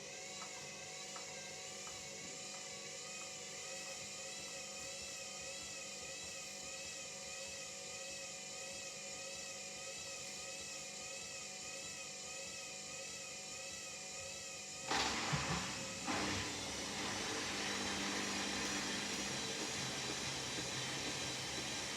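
Hoover Dynamic Next washing machine running a quick wash cycle, with a steady whine that wavers up and down in pitch. About fifteen seconds in, a sudden, louder rushing hiss sets in, with a couple of sharp knocks at its start, and carries on steadily.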